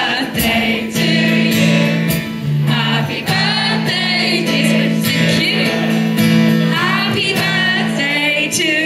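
Live band music: acoustic guitar, keyboard and drums playing under singing.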